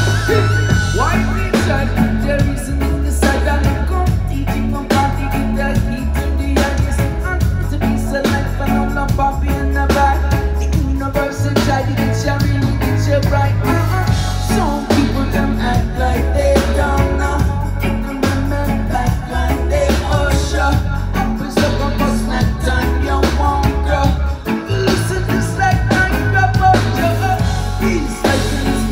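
Reggae-rock band playing live: electric guitar, bass guitar, keyboard and drums, with a heavy bass line repeating in even phrases, heard from within the crowd.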